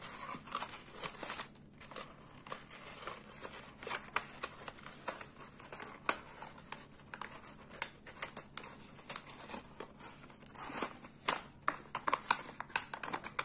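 A sheet of paper being folded and tucked by hand: irregular crinkling and rustling with scattered sharp crackles as the flaps are creased and pressed flat.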